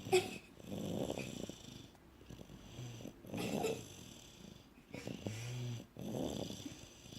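Snoring in slow breath cycles: a rough, noisy breath about every two and a half to three seconds, with a short low droning snore tone between breaths.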